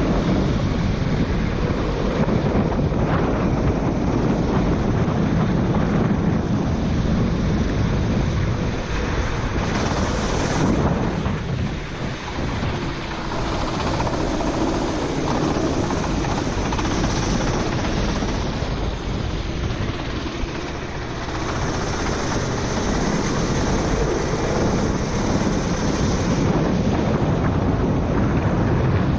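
Four-stroke racing kart running flat out on a wet track, heard from on board: engine noise mixed with heavy wind buffeting on the microphone and the hiss of tyre spray. The sound dips briefly twice, about twelve and twenty-one seconds in.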